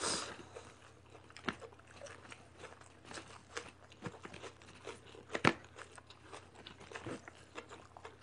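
Close-up chewing of a full mouthful of food, faint and wet with scattered small crunches and clicks, the sharpest about five and a half seconds in.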